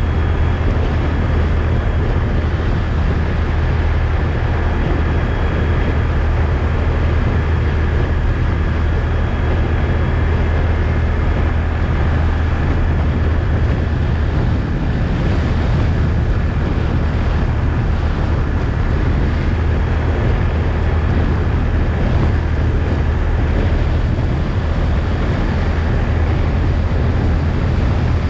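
ATV engine running steadily while riding, a low drone with wind noise on the microphone over it.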